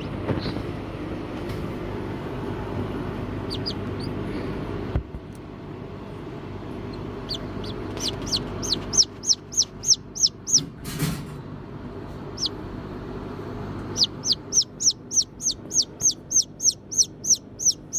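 Newly hatched Serama chick peeping loudly, about three short, high, falling peeps a second, in two runs with a pause in between, which the keeper takes as a sign the chick is cold. A low steady rumble underneath drops away about five seconds in.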